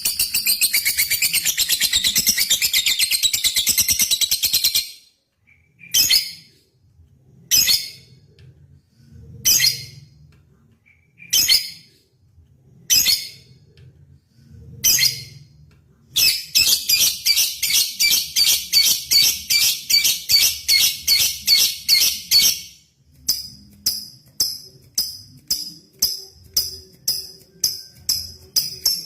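Lovebird song: a long rapid trilling chatter (ngekek), then single sharp chirps every second and a half or so, another long rapid trill lasting about six seconds, and near the end a string of quick sharp ticks about three a second (ngetik).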